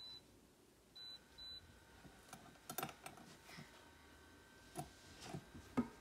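Button beeps from a cool-mist humidifier's control panel as a child presses it: one short high beep, then two more close together about a second later, the presses switching its settings and blue night light. Then a few light knocks and taps, the sharpest near the end.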